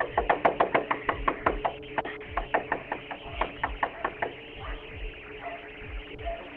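Rapid, frantic knocking on a front door, about four to five knocks a second, thinning out about two-thirds of the way through, picked up by a doorbell camera's microphone. Low background music runs underneath.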